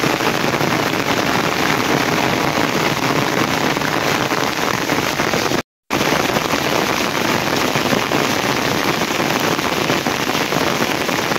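Steady rain falling. The sound drops out for a moment a little over halfway through.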